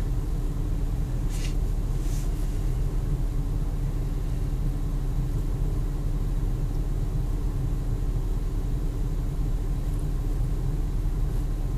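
Steady low rumble with a constant hum, like a parked car's engine idling, with a couple of faint clicks in the first few seconds.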